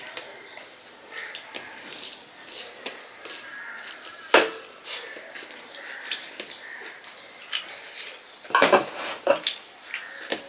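Fingers mixing rice with mashed vegetable on a stainless steel plate, scraping and tapping against the steel in many small clicks. A sharper clink comes about four seconds in, and a cluster of louder clinks near the end.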